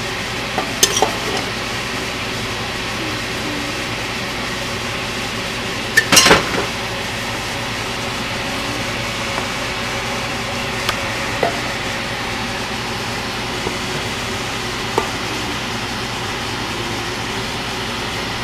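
A spoon knocks and scrapes against cookware a handful of times while rice and masala are layered into a biryani pot. The loudest cluster of knocks comes about six seconds in, over a steady background hiss.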